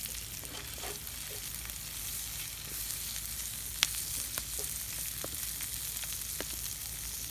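Hot oil sizzling steadily in an iron pan as potato strips and Berner sausages fry over a campfire, with a few sharp crackles and clicks, the loudest about four seconds in.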